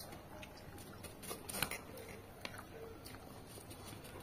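Quiet eating sounds from peeled orange segments: scattered soft mouth clicks and smacks, a few louder ones about a second and a half in.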